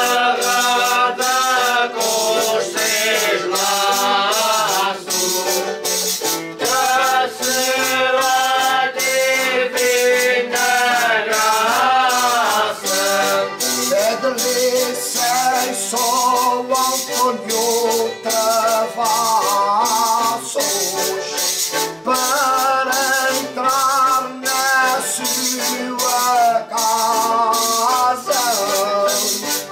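A group of men singing a folk song in unison, the singing of the Azorean Holy Spirit foliões, over steady shaken, jingling percussion.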